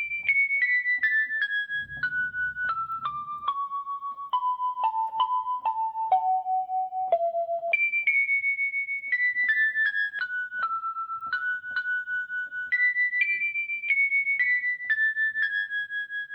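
Background music: a simple melody on an electric-piano-like keyboard, played one note at a time, stepping down through a run of notes and then climbing and falling again.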